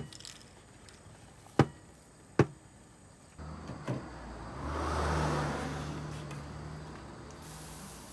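A wooden spatula knocks sharply against a plastic mixing bowl three times while stirring thick dough. Then a steady low hum, with a rushing sound that swells and fades like a car going by.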